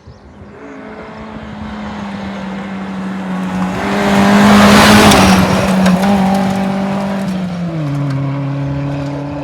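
A 2WD rally car at speed approaching and passing: a steady engine note builds in loudness to a peak about halfway, with a rush of tyre and road noise as it goes by. About three-quarters of the way through the engine note drops in pitch as the car pulls away.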